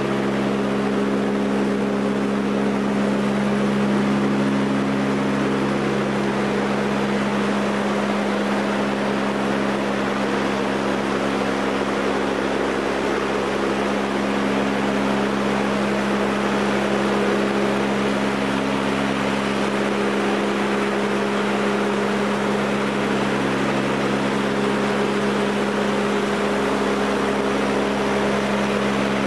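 Cabin drone of a Lockheed L-188 Electra's four Allison 501 turboprops in flight: a steady low propeller hum under a hiss of airflow. Some of its higher tones slowly come and go.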